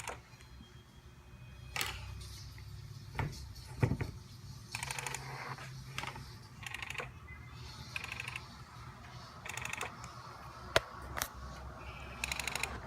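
Tamron 70-200mm G2 telephoto lens making a strange mechanical noise: short bursts of fast, buzzy clicking, each about half a second, repeated several times, with a few sharp single clicks between them over a faint low hum. The owner cannot tell whether the noise is normal or a defect.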